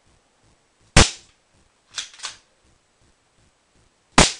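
Airsoft Glock 17 pistol fired twice: two sharp snaps about three seconds apart, with a quieter pair of clicks between them.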